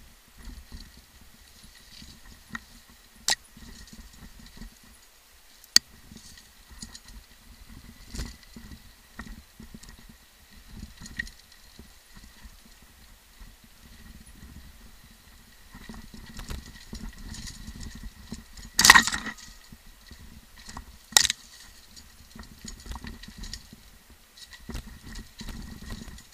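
Mountain bike rattling and clattering down a steep rocky trail, with a low rumble from the tyres on rough ground and scattered sharp knocks; the loudest hit comes about two-thirds of the way through, with another a couple of seconds later.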